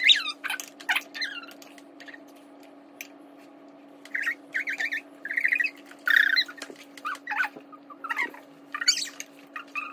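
High-pitched squeals and quick giggling bursts, much higher than an adult voice, heard in clusters mostly in the middle of the stretch, over a steady low hum.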